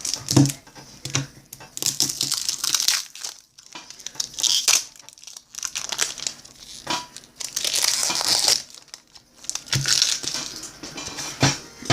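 Crinkling and rustling from baseball cards and their packaging being handled, in several separate bouts, with a few light knocks.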